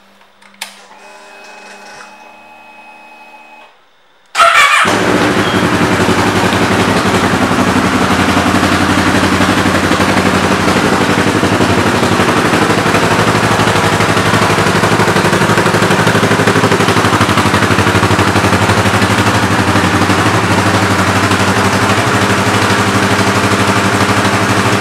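Kawasaki Ninja 650's parallel-twin engine being started: after a click and a faint steady whine, it fires about four seconds in and then idles steadily.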